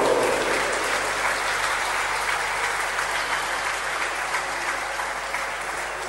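Crowd applauding in a sports hall, slowly fading.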